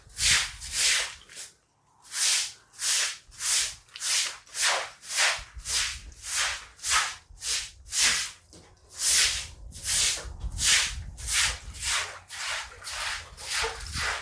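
Cloth scrubbing a surface in quick, even back-and-forth strokes, about two a second, with one brief pause near the start.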